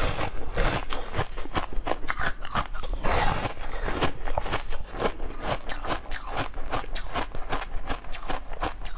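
Eating sounds of a person biting and sucking at a large fish-shaped jelly: a dense, continuous run of wet clicks and crackles.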